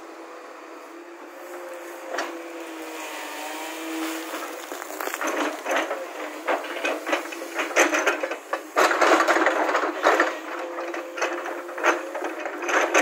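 JCB tracked excavator running, its engine and hydraulics giving a steady whine that shifts in pitch a few seconds in. From about five seconds in, rock clatters and grinds as the steel bucket scrapes through broken stone, loudest around eight to ten seconds in.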